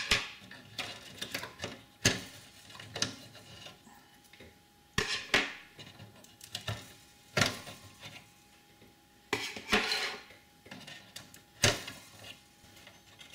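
Power Mac G4 Sawtooth's RAM modules being pulled out: the DIMM slot latches snap open and the sticks click and clatter, in sharp clicks every couple of seconds with a short rattle partway through.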